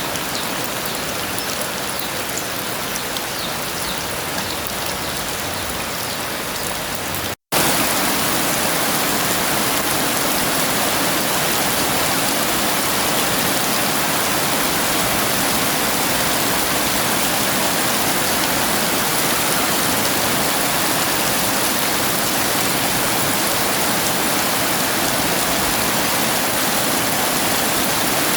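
Heavy rain pouring steadily. About seven seconds in it cuts out for a split second and comes back slightly louder.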